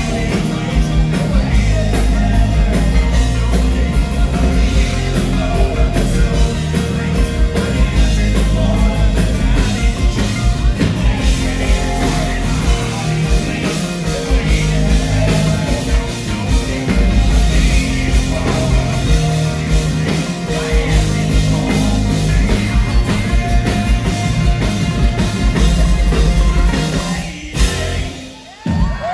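Loud rock music with singing, played by a live band; the music stops abruptly near the end.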